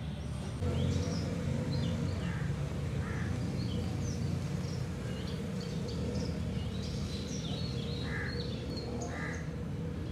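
Birds calling outdoors, many short calls scattered throughout, over a steady low hum.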